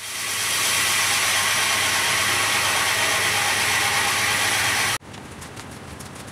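Drill press driving a hole saw through a wooden board: a loud, steady cutting noise that builds up at the start and holds level. It stops abruptly about five seconds in, leaving quieter background noise.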